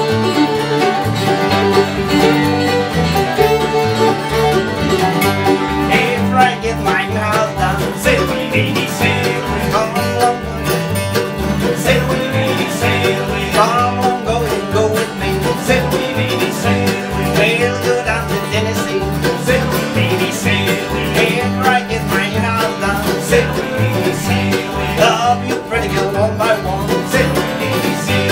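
Bluegrass band playing an instrumental: banjo rolls and acoustic guitars over an upright bass keeping a steady beat, with a fiddle.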